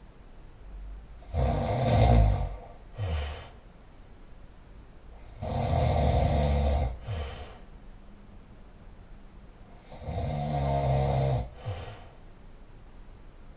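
A person snoring very loudly. Three long snores come about four seconds apart, each followed by a short, quieter breath.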